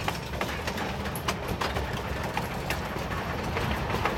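Narrow-gauge passenger train heard from inside a carriage as it runs on the track: a steady low rumble with scattered, irregular clicks and knocks from the wheels and car.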